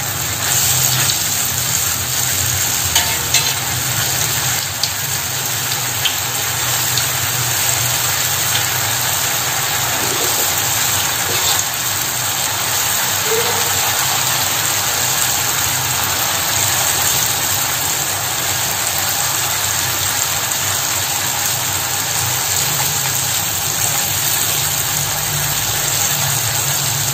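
Peanut peyek batter deep-frying in hot oil in a large wok: a steady sizzle, with a few light clicks in the first several seconds.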